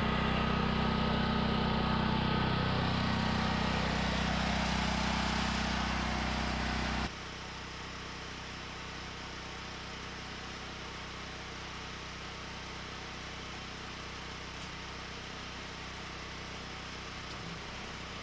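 Portable generator engine running at a steady buzzing pitch; about seven seconds in it drops suddenly to a quieter, steady hum that carries on.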